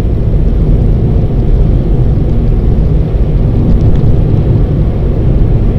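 Steady low rumble of a car driving along a road, its tyre and engine noise heard from inside the cabin.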